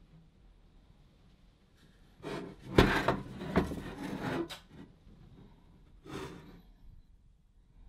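An old sheet-metal paraffin lamp handled and turned on a bench: a run of scrapes and knocks, the loudest a sharp knock about three seconds in, then one more short scrape a few seconds later.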